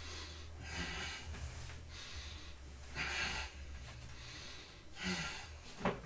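A man breathing hard through a barbell bench press, with heavy breaths about every two seconds, and a sharp click near the end over a steady low hum.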